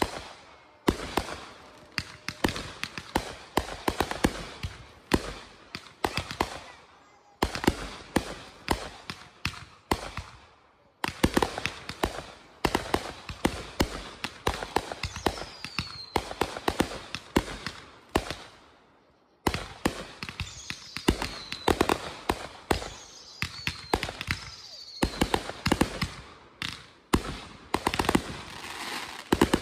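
Fireworks going off in dense, rapid volleys of sharp bangs and crackles, broken by brief lulls about 7, 11 and 19 seconds in. A few short falling whistles run through the volleys.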